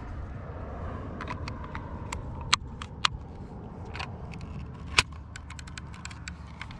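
Small metallic clicks and ticks from a scoped lever-action rifle being handled at its receiver, with a few sharper clicks near the middle, over a steady low rumble.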